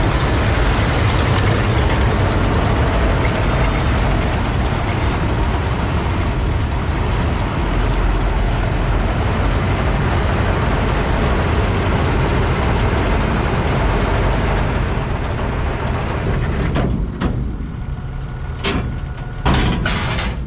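Krone Vario Pack 1800 round baler and its tractor running steadily, picking up and pressing hay into a bale. Near the end the machine noise drops and a few sharp clanks follow as the baler's tailgate opens and the finished hay bale is ejected.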